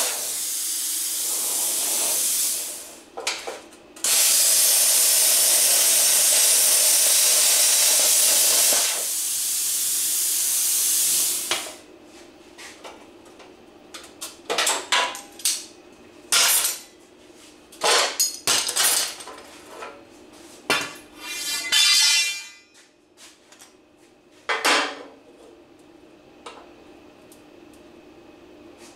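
Air plasma cutter hissing loudly as it cuts through a metal bumper, pausing briefly about three seconds in, cutting again until about nine seconds, then its air trailing off around eleven seconds. After that, metal clanks and knocks as the cut bumper is handled, with a short run of rapid scraping.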